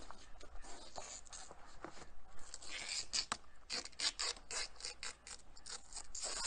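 Old clear tape being pulled off its roll and wrapped around a rolled-up rubber conveyor belt: a rasping, crackling peel with a quick run of sharp crackles around the middle.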